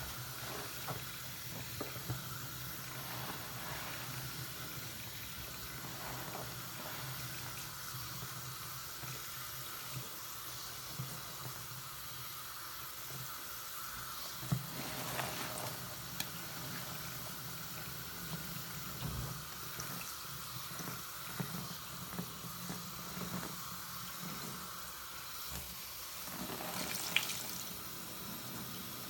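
Bathroom faucet running into a sink full of foam while a lathered sponge is squeezed and worked by hand, with short wet squelches now and then.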